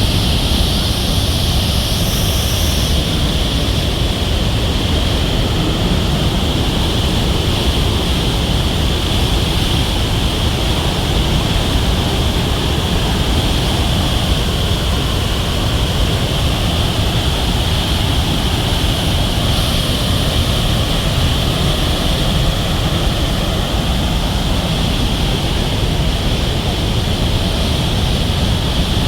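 Murchison Falls, the Nile forced through a narrow rock gorge, giving a loud, steady rush of falling water that does not change.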